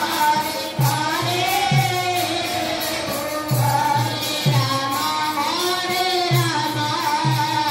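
Devotional kirtan singing of a naam yajna, with instrumental accompaniment and a low drum beating about once a second.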